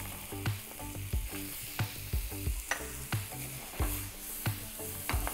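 Pork cubes and diced carrots sizzling in hot oil in a frying pan, with a steady hiss and light knocks about twice a second as the carrots drop in and are stirred with a wooden spoon.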